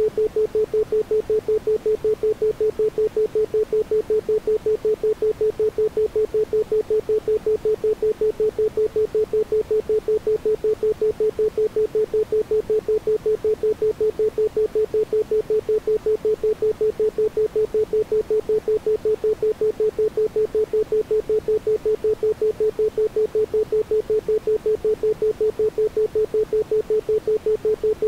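Isochronic tone: a pure tone at about 432 Hz switched on and off rapidly and evenly, producing a steady pulsing beep, meant for brainwave entrainment.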